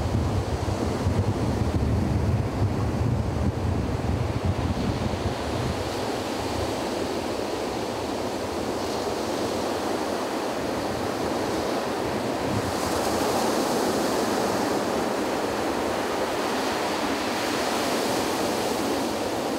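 Sea waves breaking and washing up a beach: a continuous surf rush that swells a little about two-thirds of the way through and again near the end. Low wind buffeting on the microphone in the first few seconds.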